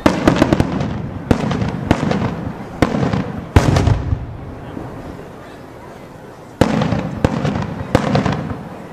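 Aerial fireworks shells bursting overhead with sharp, loud bangs in quick succession, each trailing off in echo. The loudest comes about three and a half seconds in, then there is a lull of a couple of seconds before the bangs start again.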